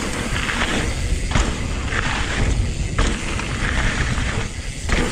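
Electric mountain bike descending a loose, rocky trail: wind buffets the microphone with a steady low rumble, and tyres crunch over gravel in swells that come and go about once a second.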